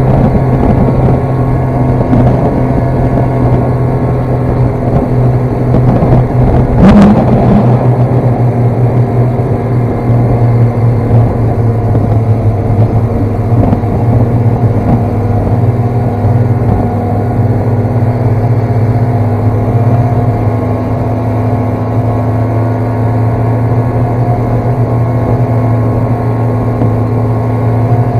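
Snowmobile engine running steadily, with a short knock about seven seconds in.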